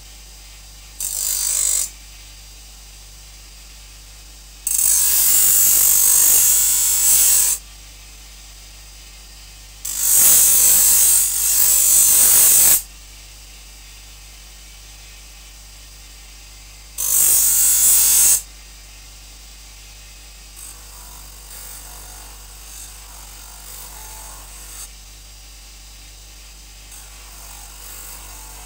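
Bench grinder motor running with a steady hum while a knife blade is pressed to the spinning wheel in four loud, harsh grinding passes, each one to three seconds long. In the last several seconds the blade is worked lightly on the red felt polishing wheel, giving a fainter, patchy rubbing that removes scratches from the blade.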